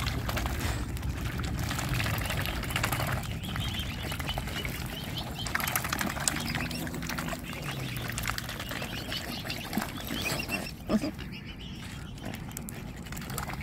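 Mute swans and cygnets crowding to feed from a hand: water splashing and bills pecking, with the birds' calls now and then and a sharp knock about eleven seconds in.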